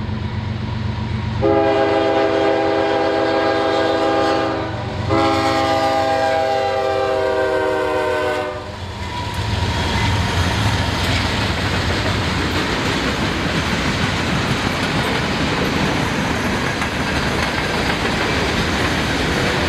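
Locomotive horn sounding two long blasts, the second dropping slightly in pitch, as the train nears. The train then passes close by with a loud steady rumble of engines and wheels clacking over the rail joints.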